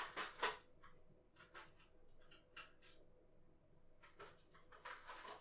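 Faint handling sounds: a few light clicks and rustles of small objects being picked up and moved about, the loudest just at the start and a softer patch of rustling near the end.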